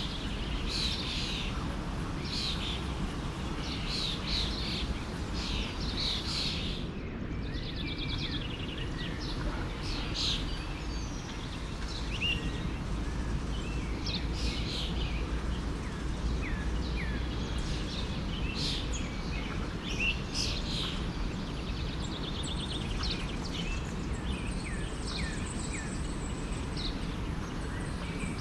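Several small songbirds chirping and calling in short, quick notes, some sweeping downward, over the steady low rush of a flowing forest stream.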